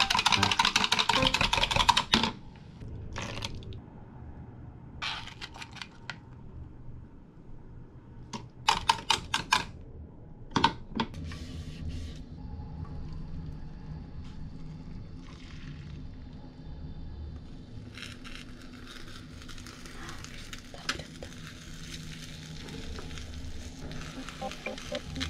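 A fork beating eggs against a glass measuring cup in fast clicks for about two seconds, then a few short clinks and scrapes of utensils and the pan. In the last several seconds beaten egg sizzles faintly in a square tamagoyaki pan.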